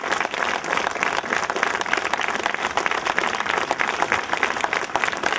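Crowd applauding, with many hands clapping steadily.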